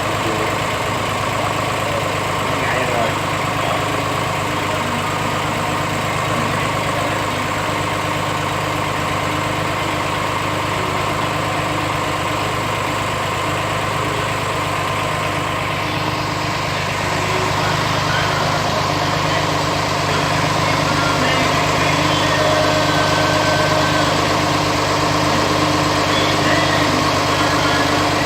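An engine idling steadily, with a constant even drone and no revving.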